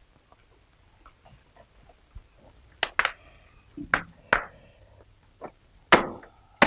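A few sharp knocks, each with a brief ringing tone. The first two come close together about three seconds in, and more follow spaced out over the next three seconds.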